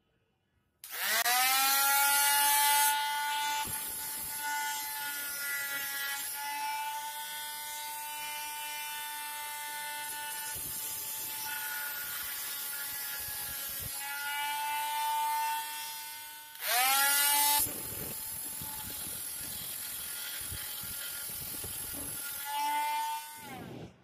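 WORKPRO oscillating multi-tool switched on about a second in and running with a steady whine, its wood-and-metal blade pressed against a steel drywall screw in a pine board. Harsh, loud grinding comes in the first couple of seconds and again briefly near the end. Such a blade is meant only for non-ferrous metal and is the wrong one for hard drywall screws.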